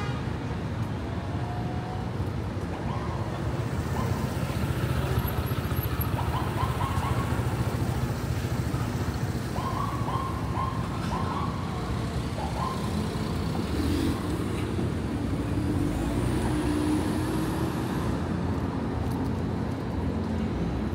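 City street traffic: a steady rumble of cars and other vehicles passing on the road.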